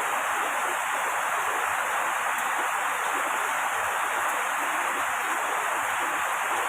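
Steady sound of heavy rain, an even rushing hiss with no separate drops standing out.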